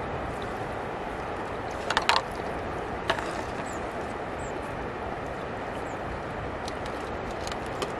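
Plastic bottle floats and sticks of a bottle fishing trap being handled: a quick cluster of clicks and knocks about two seconds in, another single click about a second later and a light one near the end, over a steady rushing background.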